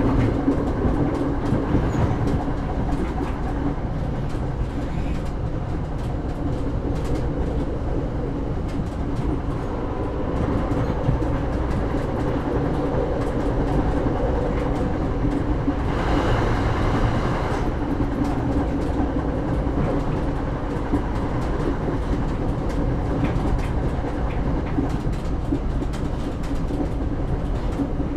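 Inside a local train carriage moving slowly: a steady rumble and hum with frequent clicks and knocks from the wheels and car body. A brief brighter hiss swells for a second or so about two-thirds of the way through.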